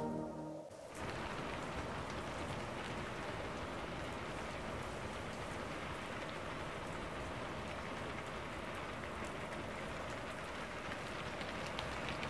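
Rain falling steadily, an even hiss that begins about a second in as background music cuts off.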